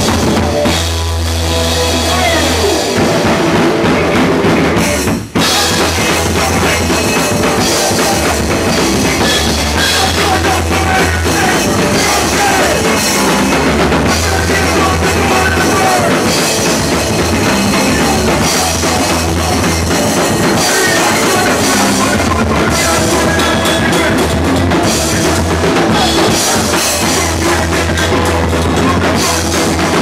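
Live rock band playing loud at close range: drum kit with cymbals, bass drum and snare, under electric guitar. The sound cuts out for an instant about five seconds in.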